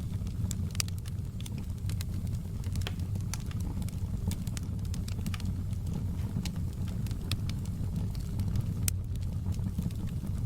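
Wood fire burning in a fireplace: a steady low rumble with frequent irregular sharp crackles and pops from the burning logs.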